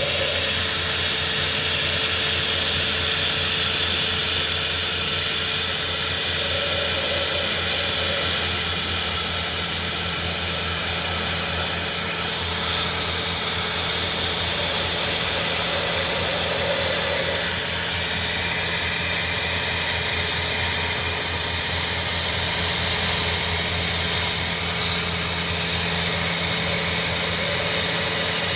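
Kearney & Trecker rotary head milling machine running steadily, its motor and spindle giving a constant hum under an even hiss.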